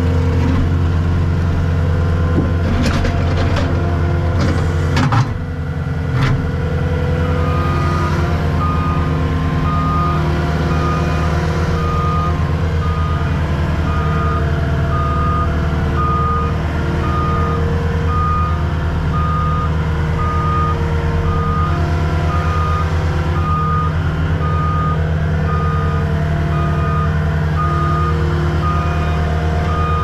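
Tracked skid steer's diesel engine running, heard from inside the cab, with a few metal clanks about three to five seconds in. From about seven seconds on, its backup alarm beeps steadily, about one beep a second, as the machine reverses.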